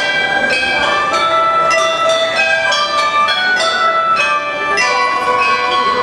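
Traditional Chinese bronze chime bells (bianzhong) played as a melody. Each struck note rings on as the tune steps up and down by a few notes a second.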